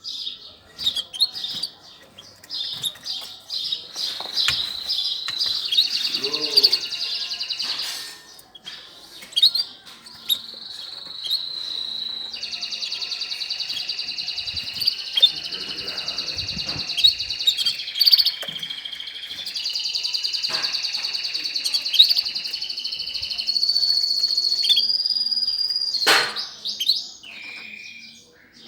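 Caged pet songbirds singing: long, rapid trills held for several seconds at a time with short breaks, mixed with single chirps.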